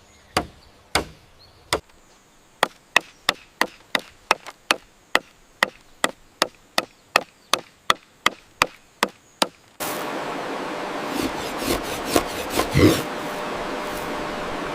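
Wooden mallet striking bamboo: a few spaced blows, then a run of about twenty sharp knocks at roughly three a second. About ten seconds in, the knocking gives way abruptly to a steady noise with a few soft knocks.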